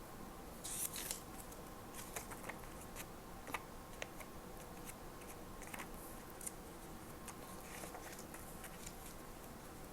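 Paper and stationery being handled at close range: scattered light clicks, snips and short paper rustles at irregular moments, over a faint steady hum.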